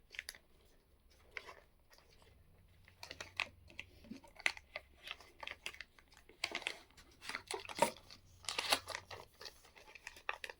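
Unboxing handling noise: packaging rustling and crinkling, with scattered small clicks and knocks as boxes and accessories are moved, sparse at first and busier in the second half.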